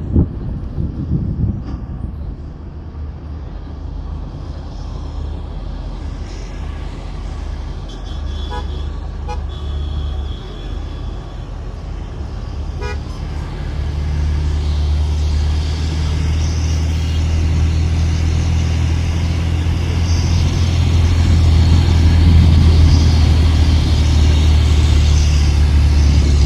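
Bus engine running and road noise heard from inside the passenger cabin of a moving MSRTC bus, the low engine rumble growing louder from about halfway through. A few short horn toots sound around the middle.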